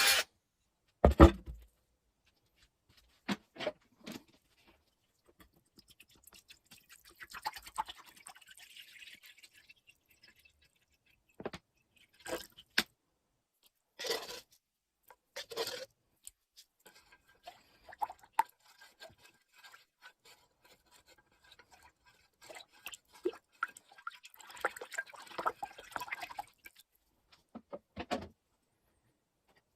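Intermittent handling sounds of small objects at a workbench: a knock about a second in, then scattered clicks and taps with short stretches of soft rustling and scraping between them.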